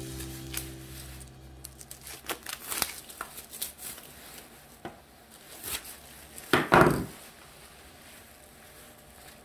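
Plastic wrapping being peeled and crinkled off water purifier filter cartridges, with light clicks and knocks as the plastic cartridges are handled. The loudest crackling rustle comes about six and a half seconds in.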